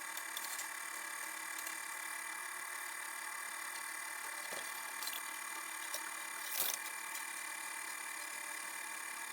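Harbor Freight mini lathe running steadily at low speed in reverse, a steady motor whine, as it winds steel wire around a rod into a tight coil. A few faint clicks, the loudest about six and a half seconds in.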